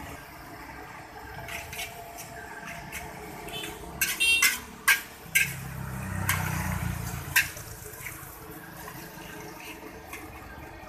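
Stir-frying noodles in a wok: a metal spatula scrapes and clanks against the wok, with several sharp strikes about four to five and a half seconds in and another near seven and a half seconds, over a steady sizzling hiss of frying.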